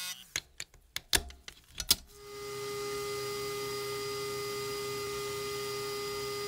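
A few sharp clicks and knocks, then from about two seconds in a sandblasting cabinet running with a steady hiss and a constant hum.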